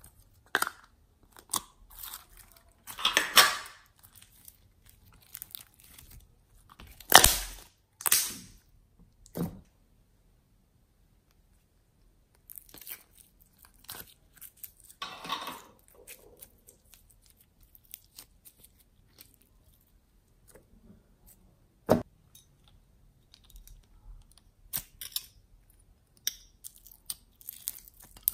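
Slime being squeezed, poked and pressed by hand, with plastic containers handled: scattered wet clicks, crackles and squelches. The loudest bursts come in the first ten seconds, with a sharp single click about 22 seconds in.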